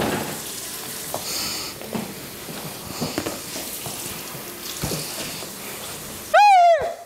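Kitchen tap water running steadily, with a few light knocks. Near the end comes a short, loud, high-pitched cry that rises and then falls.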